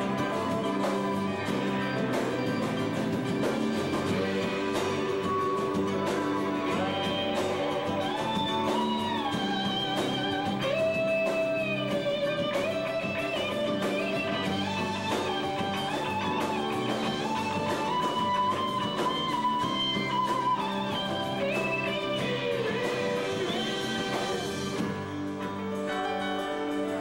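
A live band plays a song on guitars, keyboard and drums. A bending lead melody line runs over the top from about a quarter of the way in until near the end.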